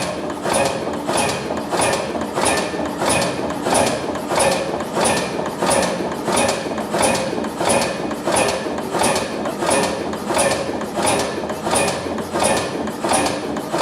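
Körting low-speed stationary diesel engine running, giving a regular mechanical clack a little under twice a second.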